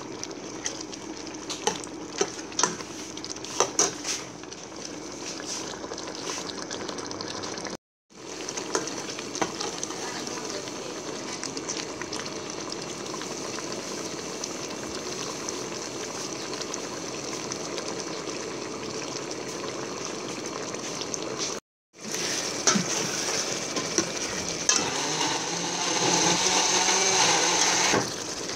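Stew simmering in a stainless steel pot while a metal ladle stirs it, with sharp clinks of the ladle against the pot in the first few seconds and a louder stretch of stirring and bubbling near the end.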